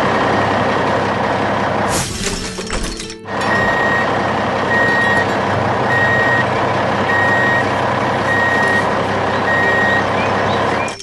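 Heavy truck engine running, with a reversing alarm beeping at an even pace, roughly once a second, from about three and a half seconds in. The engine sound breaks briefly near two seconds.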